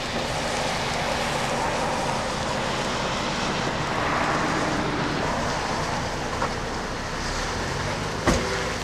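Steady rushing noise of a car in a severe hailstorm, heard from inside the cabin, with one sharp knock near the end.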